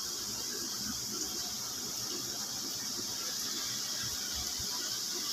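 Steady high hiss of room ambience, with faint soft rustling as kittens squirm and nurse against their mother cat on a blanket.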